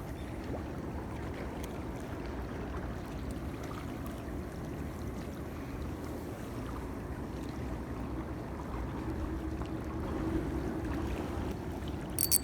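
A boat's motor runs steadily with a low rumble and hum, the hum rising a little near the end. A sudden loud noise cuts in right at the end.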